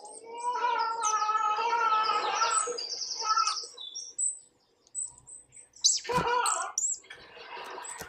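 Bird chirps and song played through a smartphone's small speaker from a bird video. The calls come densely for the first few seconds, then more sparsely, with a louder short burst about six seconds in.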